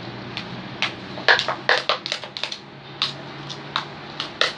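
Homemade slime made from glue, baking soda and contact solution being squeezed and kneaded by hand, giving a run of irregular sticky clicks and squelches that come thickest about a second to two and a half seconds in.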